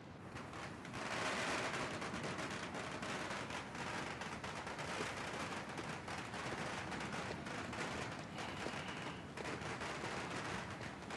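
Dense, continuous crackling of distant firecrackers going off, many pops a second, swelling slightly about a second in.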